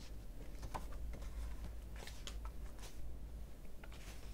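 Soft rustles and light clicks of a hardback book being opened and its pages handled, over a low steady hum.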